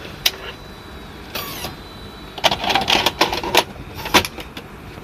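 Mechanical clicks and clatter from a portable video cassette recorder's buttons and tape mechanism. A single click comes first, then a short rattle about a second and a half in, a quick run of clicks around the middle, and one more click near the end.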